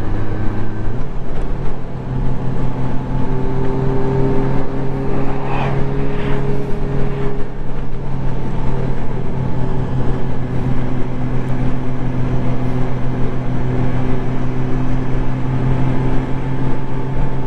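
Honda Gold Wing touring motorcycle cruising at highway speed: steady engine drone under wind and road noise. The engine note steps up about a second in.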